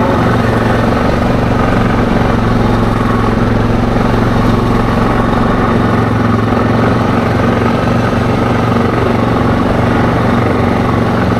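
ATV engine running steadily at cruising speed: a constant drone whose pitch and level hold even throughout.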